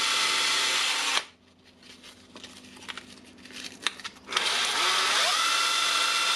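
A power-tool motor spinning the drill's armature while sanding paper is held against the commutator to clean it. The steady whine stops about a second in, small clicks of handling follow, then it spins up again about four seconds in with a rising whine that settles to a steady speed.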